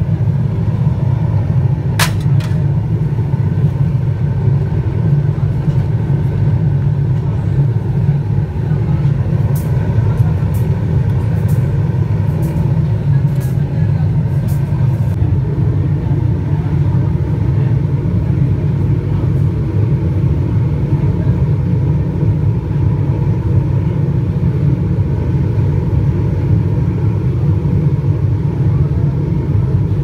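Brass-melting pit furnace burning under forced draught with a steady low rumble, a sharp metallic click about two seconds in and a few light ticks a little later.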